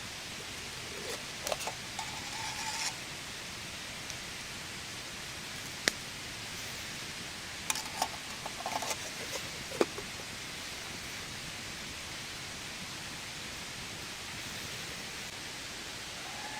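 Steady rain hiss, with a few sharp clicks and knocks of things being handled about 2 seconds in, about 6 seconds in, and again around 8 to 10 seconds in.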